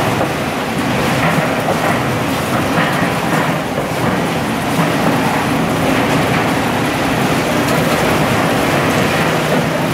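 Steady machine noise of an automated 18-litre square tin can body line running, its stations and conveyors working as can bodies are carried along.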